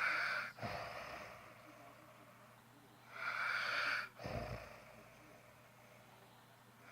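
Snoring in a slow, regular rhythm: two snoring breaths about three and a half seconds apart, each a rasping noise lasting about a second followed by a shorter, lower sound.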